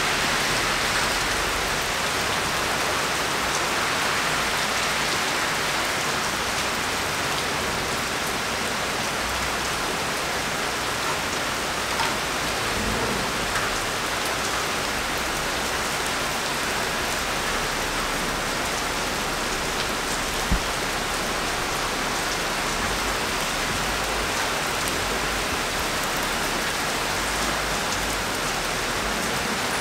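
Steady rain falling, an even hiss with a few sharp ticks scattered through it, the loudest about twenty seconds in.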